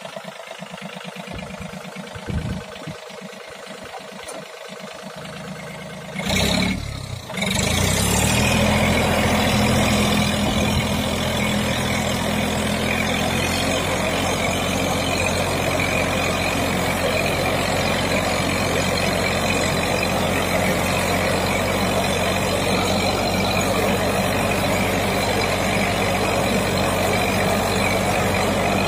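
John Deere tractor's diesel engine running a tractor-drawn blower sprayer: a steady engine hum under the rushing air of the sprayer's fan. It is quieter at first, surges briefly about six seconds in, and from about eight seconds in runs loud and steady.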